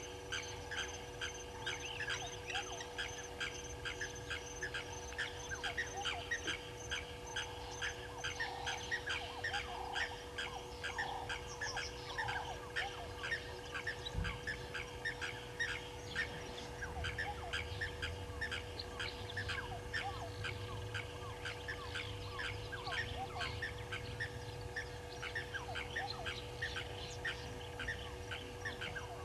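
Egyptian geese honking a few times, mostly in the middle, over a continuous rapid, even ticking of about four ticks a second and a steady hum.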